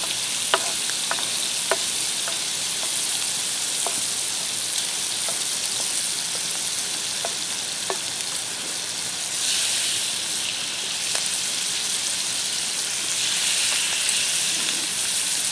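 Pineapple, corn, peas and other vegetables frying in butter in a pan: a steady sizzle with scattered sharp ticks and pops, swelling louder briefly about ten seconds in and again near the end.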